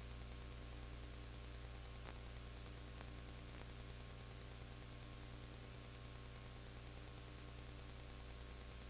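Steady low electrical hum with an even hiss, with a few faint ticks about two to three and a half seconds in; no sound of the game itself is heard.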